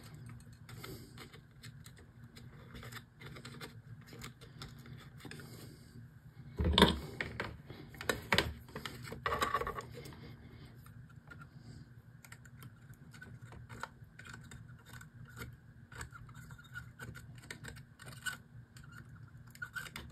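Small, scattered clicks and taps of hands handling thin copper wires and a soldering iron on a tabletop. There is a louder knock and clatter about seven seconds in, and another short run of clatter a couple of seconds later.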